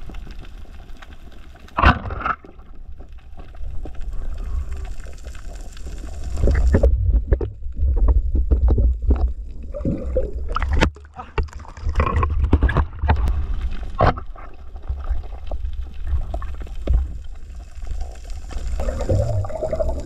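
Underwater camera audio: a muffled low rumble and gurgling of water moving around the camera, heaviest in two stretches, with a few sharp clicks or knocks scattered through it.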